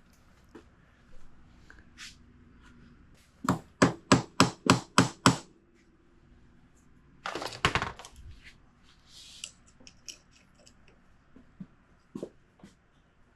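Hammer striking metal seven times in quick succession, about four blows a second, then a short clatter a couple of seconds later.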